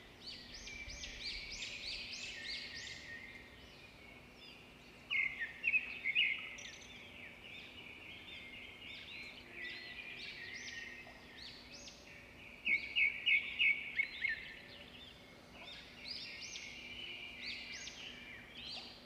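Small birds chirping and twittering in a steady chorus of short, high calls, with a run of quick repeated chirps about 13 seconds in.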